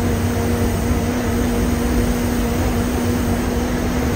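A moving air-conditioned bus heard from inside its cabin: a steady engine drone and road rumble with a constant hum running underneath.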